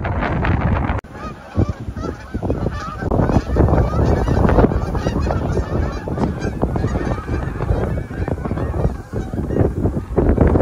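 A flock of geese in flight, honking over and over with many overlapping calls, over a heavy rumble of wind on the microphone.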